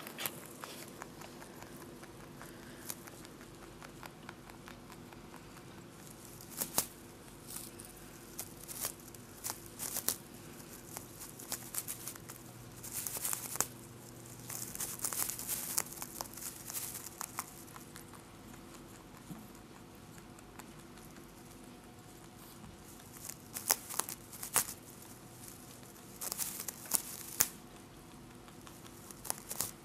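A Holland Lop rabbit gnawing at its woven dried-grass house: irregular bursts of crunching, crinkling and tearing straw, with quieter stretches between.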